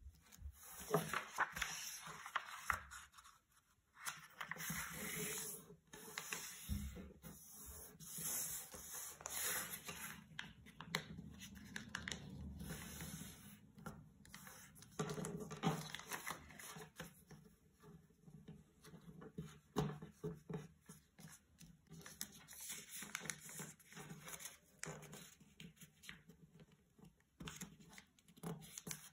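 Origami paper being handled, folded and creased by hand on a tabletop: irregular rustling, sliding and scraping of the paper.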